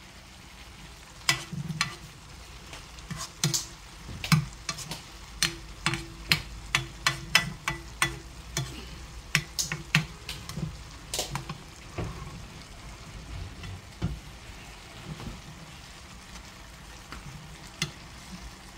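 A spoon scraping and knocking against a nonstick frying pan as small green peppers in seasoning are stir-fried, over a low sizzle. The knocks come about one or two a second for the first ten seconds or so, then thin out to a few.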